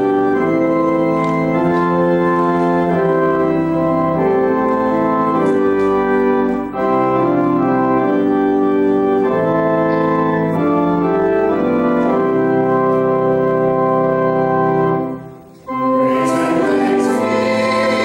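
Organ playing slow, sustained chords. It breaks off briefly near the end, then starts again with a brighter, fuller sound.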